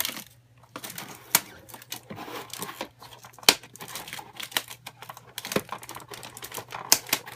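Paper ties on a model's packaging being cut with a knife and the packaging handled: irregular sharp clicks and crinkling.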